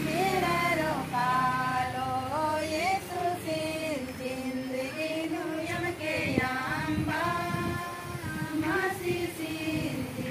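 Women's voices singing a melodic song, with held notes that slide between pitches.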